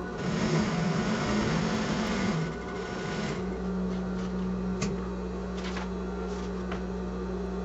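Sewing machine stitching a seam in a quick run for about the first three seconds, then a steady machine hum with a few light clicks.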